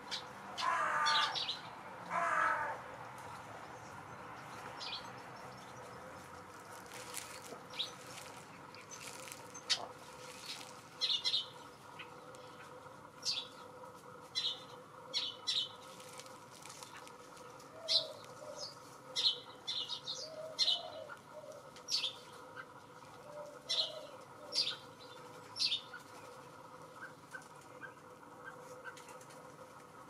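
Hooded crow giving two harsh caws about a second apart near the start, followed by a scattering of short, high bird chirps through the rest.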